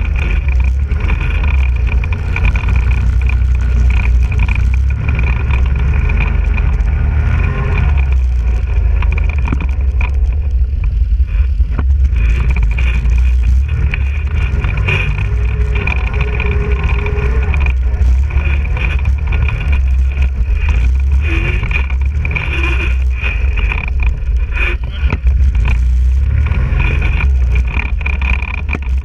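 ATV engine running under way on a rough dirt trail, a steady low rumble with a constant high whine, broken by frequent knocks and rattles from the bumps.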